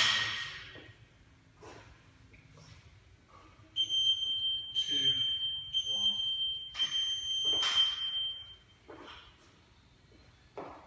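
Gym wall timer beeping: a high electronic beep in three stretches, the last one as the clock starts counting up. A loud thump opens it, like a barbell landing on the rubber floor, and a few softer knocks follow.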